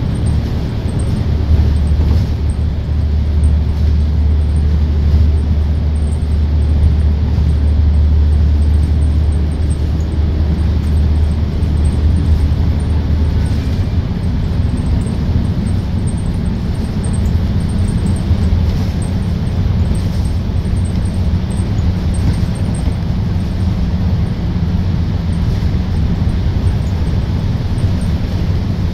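Bus engine and road noise heard from inside the cabin while driving through a road tunnel. A deep engine hum is strong from about a second in until about 13 seconds in, then eases under a steady rumble of tyres and traffic.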